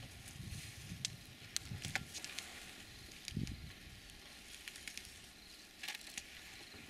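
African elephants grazing: crackling and snapping as grass is torn up and chewed, many sharp clicks, with a few soft low thumps.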